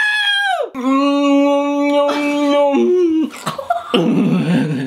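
A voice holding long sung notes: a high note that slides down about a second in, then a lower held note that steps up briefly and breaks off. Laughter and voices follow near the end.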